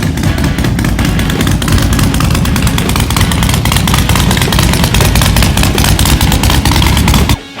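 Motorcycle engine running loud with a fast, rough exhaust note, cutting off abruptly near the end.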